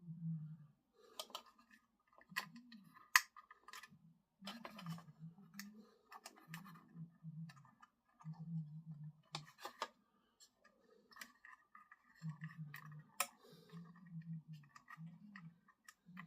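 Plastic scale-model kit parts being handled and test-fitted: irregular sharp clicks and taps of plastic on plastic, with short low rubbing sounds between them.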